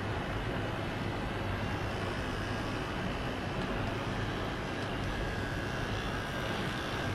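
Dermaqual Forza MMS 007 microneedling pen running, a steady motor buzz with hiss as its needle tip is worked across the skin of the face.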